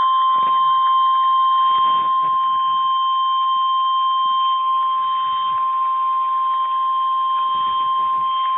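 NOAA Weather Radio's 1050 Hz warning alarm tone: one loud, steady, single-pitch tone from the radio's speaker, announcing a flash flood warning broadcast.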